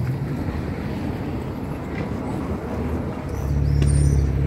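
Low engine rumble of a nearby motor vehicle, growing louder about three seconds in.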